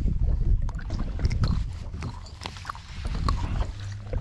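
Low rumble and water noise on a boat at sea, with many short clicks and knocks as a freshly caught gray triggerfish is handled at the rail.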